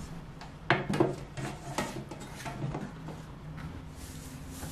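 Metal baking trays being handled: two sharp knocks a little under a second in, then lighter taps and a hand rubbing on the tin.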